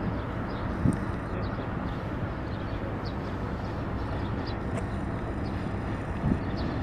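Diesel locomotives of a slowly arriving freight train: the engine of the lead CFR Class 60 (060-DA) diesel-electric, with a DHC 80 diesel-hydraulic behind it, running with a steady low rumble. Two short thumps come about a second in and near the end.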